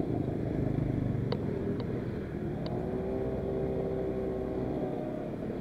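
Two-stroke 50cc Asiastar automatic scooter running while being ridden. A clearer engine tone comes up and rises gently in pitch over the second half.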